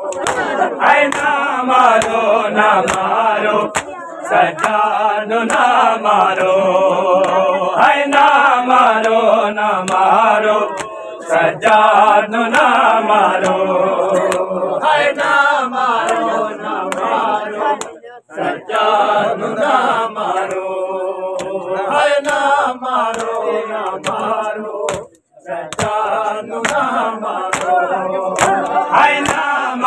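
A group of men chanting a noha, a Shia lament, in unison, with the sharp hand slaps of matam, chest-beating, keeping time. The chant breaks off briefly twice in the second half.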